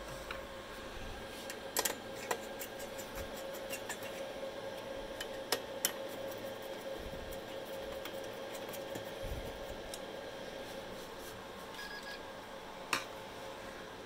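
Sharp metallic clicks and taps as a screwdriver and hands handle parts inside a workstation computer case, over a steady hum of the running computer's fans. The clicks come in pairs about two seconds and about six seconds in, with one more near the end.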